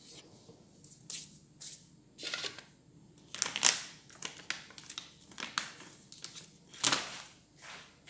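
Handling noise as the recording phone is set in place: irregular rustles and scrapes close to the microphone, loudest about three and a half seconds in and again about seven seconds in.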